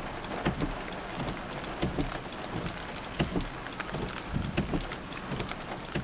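Outdoor ambience in the snow: a steady hiss and low rumble with many irregular soft taps and crackles.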